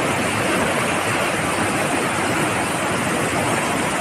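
A muddy flash-flood torrent rushing steeply downhill, making a steady, loud, dense rush of water.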